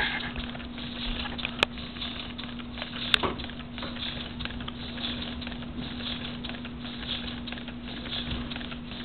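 Two-cylinder Lego pneumatic scotch yoke engine running on compressed air: a continuous, uneven patter of air puffs and plastic clicks from its pistons and switch valves, with a few sharper clicks in the first few seconds. The running is a bit jerky, because the two pistons are set 90 degrees apart with no flywheel beyond a big gear.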